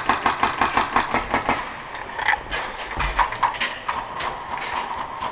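Airsoft guns firing: a fast, even string of shots for the first second and a half or so, then scattered single shots.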